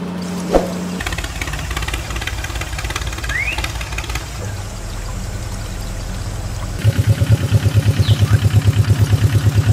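Engine running at idle, its sound changing about a second in; from about seven seconds in it becomes a louder, even putter of roughly seven beats a second.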